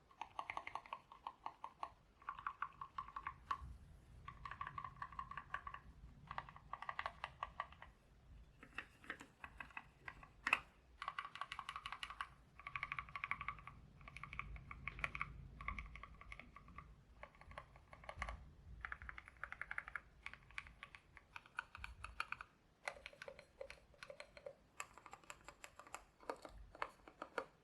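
Typing sound test on a custom 60% mechanical keyboard with Gateron Black Ink V2 linear switches, an aluminium plate and MT3 keycaps: rapid runs of keystrokes in short bursts with brief pauses between them, and one louder single key strike about ten seconds in.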